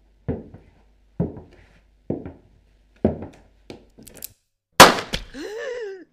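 Produced horror sound effects: four heavy thuds about a second apart, a few small clicks, then a loud sharp bang followed by a short wavering cry that rises and falls in pitch.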